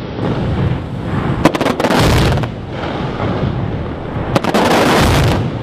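Aerial fireworks shells launching and bursting in two rapid volleys of sharp bangs, about a second and a half in and again about four and a half seconds in, over a constant low rumble.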